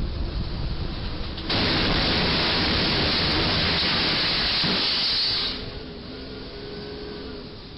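A box truck too tall for the 11-foot-8 clearance strikes the steel railroad bridge and its cargo box is torn open. The loud, even crash noise starts suddenly about a second and a half in and lasts about four seconds before dropping back to steady background noise.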